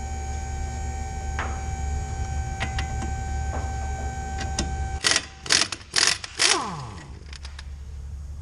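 Impact wrench on an 18 mm socket hammering in four short rattling bursts about five seconds in, then spinning down with a falling whine. A few light metallic clicks come before it.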